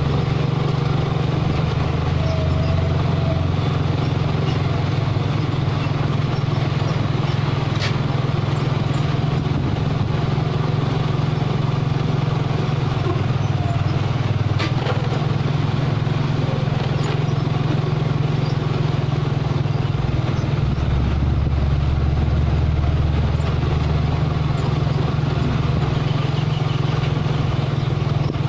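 Mitsubishi Fuso 220PS self-loader truck's diesel engine running steadily as the truck drives slowly along a dirt road under the load of a crawler excavator. Two brief clicks come through, about a quarter and halfway in.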